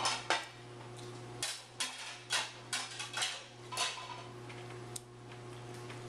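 A string of short clatters and knocks, about ten in the first five seconds, over a steady low hum.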